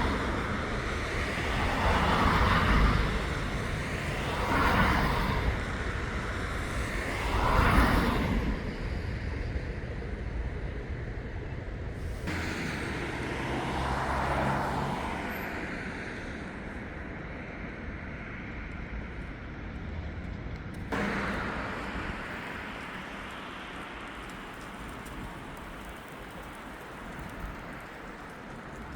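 City street traffic: several cars pass one after another, each a swelling tyre-and-engine whoosh, over a steady background hum of traffic. The background changes abruptly twice along the way.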